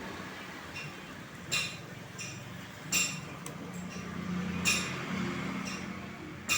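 Honda Scoopy ignition key switch being turned, giving four sharp metallic clicks with a brief ring, about one and a half seconds apart, over a low steady hum.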